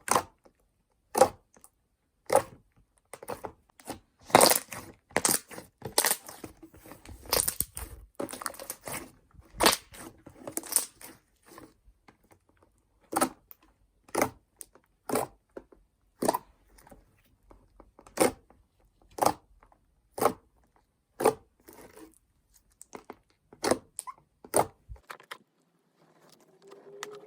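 Homemade slime being squeezed and poked by hand, with many sharp pops and clicks, some from fingernails in the slime. A busy stretch of crackling comes in the first half, then single pops about once a second that stop shortly before the end.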